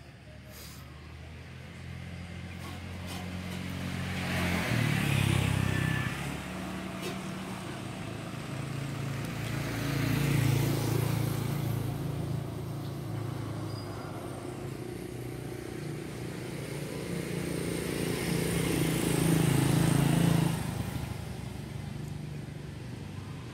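Motor vehicles passing on the road, three of them in turn, each growing louder and fading, over a steady low engine hum.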